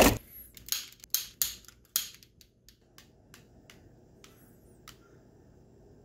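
A long-nosed butane utility lighter handled and clicked: a sharp knock at the start, then a quick run of sharp clicks for about two seconds, then fainter, sparser clicks until it lights.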